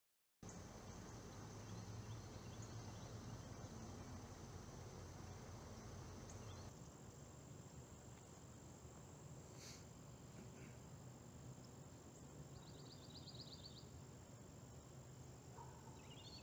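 Faint outdoor ambience: a steady high-pitched hiss over a low even background, with a few short rapid bird chirps near the end.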